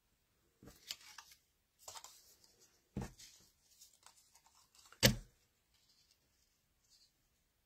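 Strips of patterned paper and card rustling and sliding as they are picked up and laid out by hand, in a few short bursts, with a single sharp tap about five seconds in as a strip is set down on the work surface.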